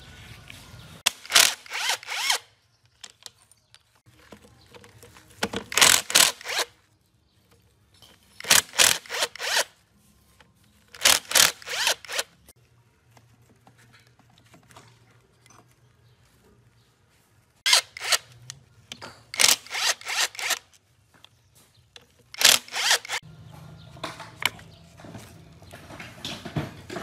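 Tool work on a stripped-down engine block: about eight short rasping bursts, each about a second long and made of quick sharp strokes, with quiet gaps between them.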